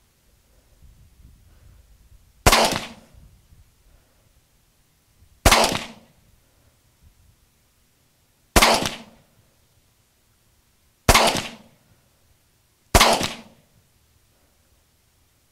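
AR-15 rifle in 5.56 firing five single semi-automatic shots, spaced two to three seconds apart, each with a short trailing echo.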